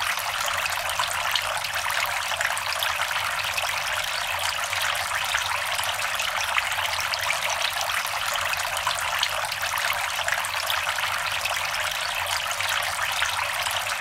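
Water in a two-tier birdbath fountain, bubbling up from the pump outlet in the top bowl and trickling over the rims into the lower bowl: a steady splashing trickle.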